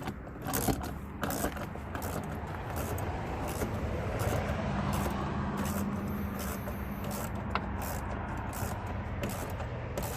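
Screws being tightened on a truck's interior door panel: a run of irregular sharp clicks over a steady low hum.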